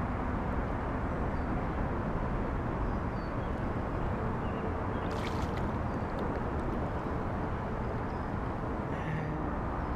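Steady rushing noise of water and wind on the microphone of a kayak while a hooked bass is reeled in, with one brief sharp sound about five seconds in.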